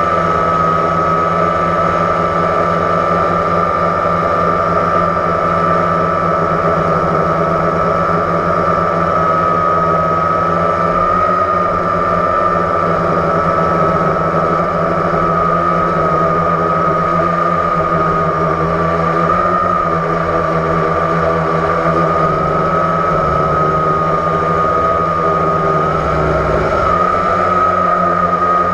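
Blade 350 QX quadcopter's electric motors and propellers running in flight, picked up by the camera mounted on the drone: a steady high whine that wavers slightly in pitch near the end.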